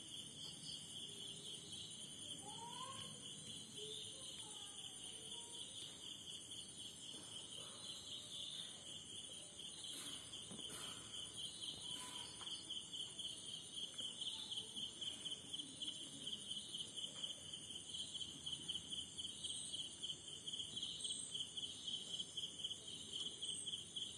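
Crickets trilling steadily in a continuous high, pulsing note.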